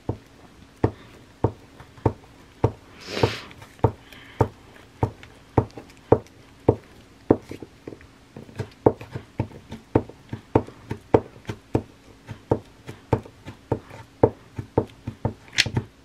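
Glue applicator tapping repeatedly on paper on a tabletop as glue is dabbed onto a piece of tissue, a steady run of sharp taps about two a second. A brief scratchy rustle about three seconds in.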